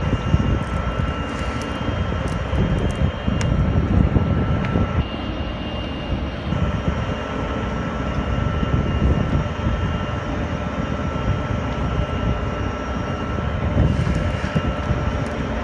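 Steady mechanical drone of heavy machinery with a low rumble, and a thin, steady high whine running over it.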